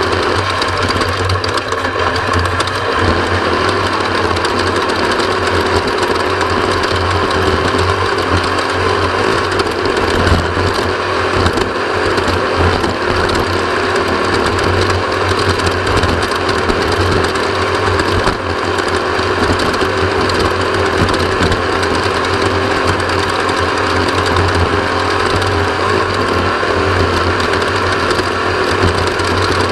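Off-road race vehicle's engine running hard and steady at speed, its pitch changing little.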